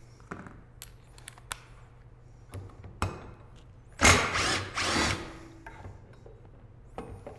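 Cordless driver with a T30 Torx bit running in two short spells about four seconds in, working a screw on a Can-Am primary clutch cover. Before it, a few light clicks as the bit is fitted into the driver.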